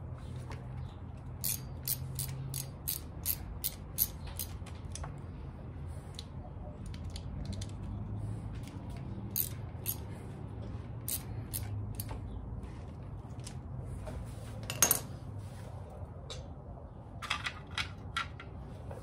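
Hand ratchet clicking in short runs of about four clicks a second, stopping and starting as bolts on a motorcycle's starter solenoid are snugged down, with one louder knock about three-quarters of the way through. A faint steady low hum sits underneath.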